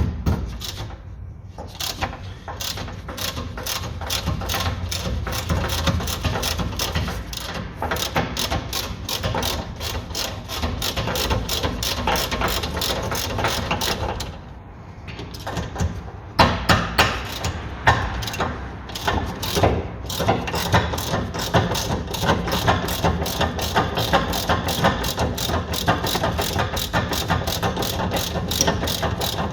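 Ratchet wrench clicking rapidly as it undoes the two E16 inverted-Torx bolts of a rear brake caliper bracket, with a short pause about halfway and a few knocks of the tool.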